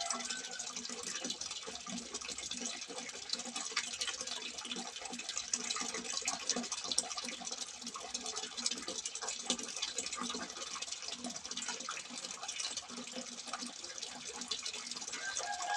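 Water trickling and splashing steadily from a simple water spout, with a constant patter of small droplet ticks.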